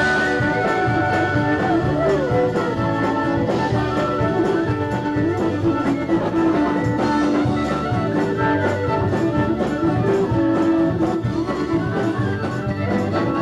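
A live band playing, with drum kit and fiddle among the instruments.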